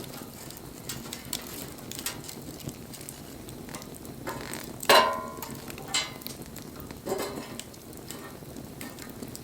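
Wood fire crackling and hissing with scattered small ticks. A sharp loud pop about five seconds in carries a brief whistling ring, and smaller pops follow near six and seven seconds.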